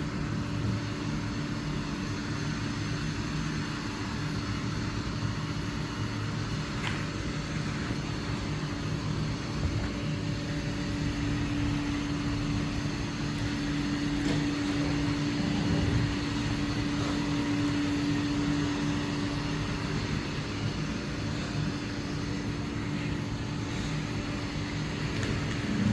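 Robot vacuum cleaner running: a steady motor hum with a constant tone, a little stronger about halfway through.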